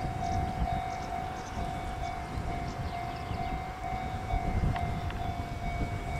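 A steady, slightly pulsing high warning tone rings throughout over a low, uneven rumble of wind on the microphone, with a few faint bird chirps.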